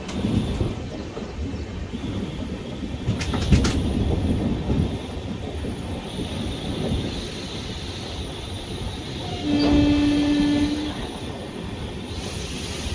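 Passenger train running on the rails, heard from on board, with a cluster of sharp clicks about three seconds in. Near the ten-second mark a train horn sounds one steady note for about a second and a half.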